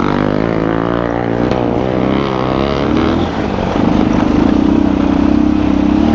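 Motorcycle engine running under changing throttle, its pitch wavering up and down for about three seconds, then holding a steady drone.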